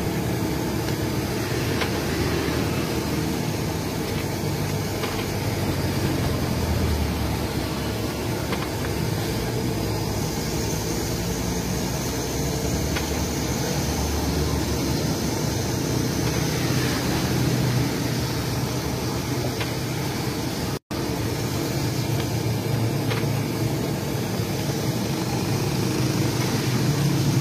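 Steady low rumble of road traffic, unbroken for the whole stretch, cutting out for an instant about 21 seconds in.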